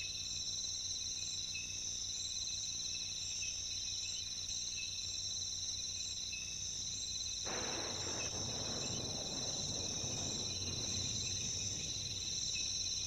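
Steady insect chorus, crickets trilling continuously at a high pitch. About halfway through, a soft rustling hiss joins underneath.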